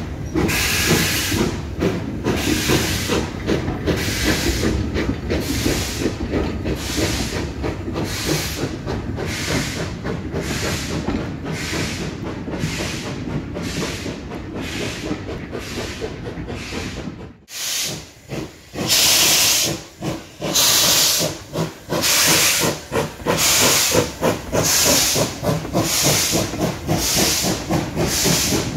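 Ivatt Class 2MT steam tank locomotive working a goods train: steady exhaust chuffs, about one and a half a second, over the rumble of the wagons rolling by. About two-thirds through, the chuffs come louder and sharper, with clear gaps between them.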